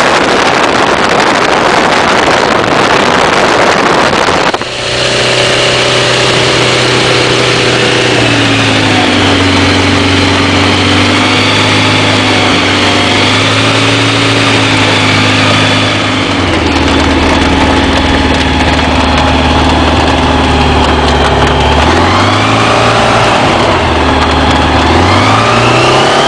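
Kitfox light aircraft's piston engine and propeller heard from the cockpit. It starts as a steady rush of engine and air noise; about four and a half seconds in this changes abruptly to the engine running at low power on the ground, its pitch stepping down and up several times as the throttle is worked. The pitch rises again near the end as power comes up for departure.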